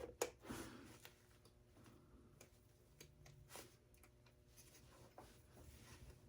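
Near silence with a sharp click just after the start, then scattered faint ticks and light scraping from small metal and plastic parts being handled while a desktop computer is dismantled.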